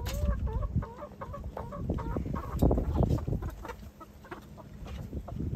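Domestic hens clucking in a quick run of short calls, thinning out after the first couple of seconds, with a low rumble on the microphone about halfway through.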